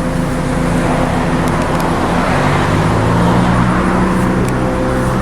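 Road traffic: a vehicle engine running steadily, with a wash of road noise that swells about halfway through as a vehicle goes by.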